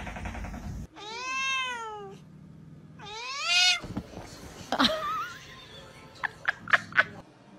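Domestic cats in a standoff: two drawn-out yowling meows, each about a second long, rising and then falling in pitch. Then a short sharp cry, and four quick sharp sounds near the end.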